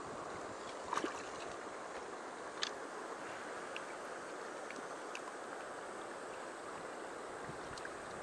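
Steady rush of a shallow river running over stones, with a few small clicks and splashes, the sharpest about a second in and again about two and a half seconds in.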